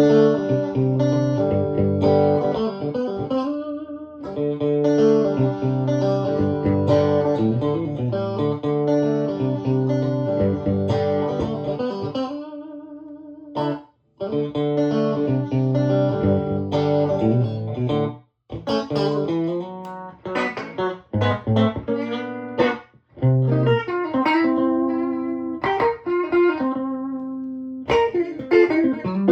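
Electric guitar played through a 2004 Victoria 35310, a tweed 5E7 Bandmaster-style tube combo driving three Jensen P10R 10-inch speakers, playing rock chords and riffs. The playing stops briefly twice, about 14 and 18 seconds in.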